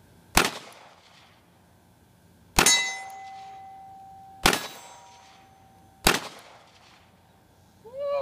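Four shots from a CZ P-10 C 9mm pistol, about two seconds apart. The second shot is followed by a steel plate target ringing like a bell for about two seconds, the sign of the one hit; the other three shots miss the steel.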